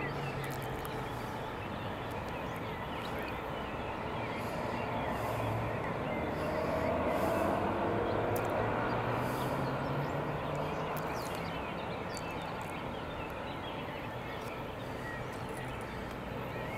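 Outdoor ambience: a steady hiss with a low motor hum that swells about halfway through and then fades, like a vehicle passing.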